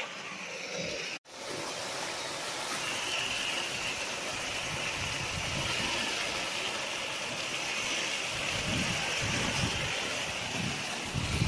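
Water gushing from an irrigation pipe outlet into a concrete tank, a steady loud rush that starts suddenly about a second in.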